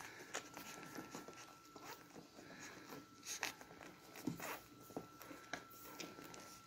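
Beagle puppies suckling at their mother: soft, wet sucking and smacking clicks at an irregular pace.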